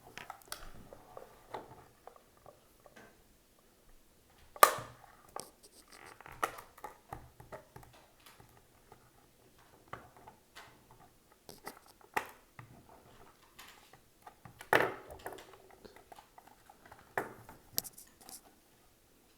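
Small plastic clicks and scrapes from handling an HO-scale model locomotive while prying its body shell off, with two sharper snaps, one about five seconds in and one near fifteen seconds.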